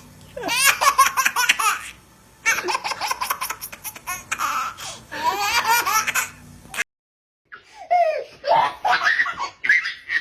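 A baby laughing in quick, high-pitched runs of giggles and belly laughs. About seven seconds in the sound cuts to dead silence for a moment, then a second baby-laughter clip starts.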